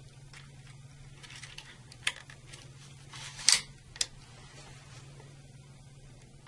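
Small plastic clicks and light handling rustle as the spring release's wire leads are pushed into the circuit breaker's secondary terminal block: three sharp clicks around the middle, the second the loudest, over a steady low hum.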